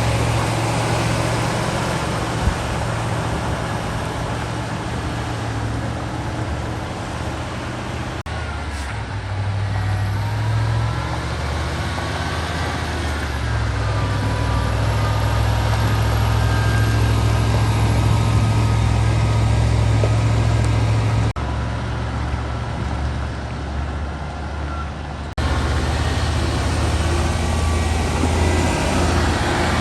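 Heavy diesel engine running steadily, heard across several shots cut together; about ten seconds in, a fainter whine rises and falls.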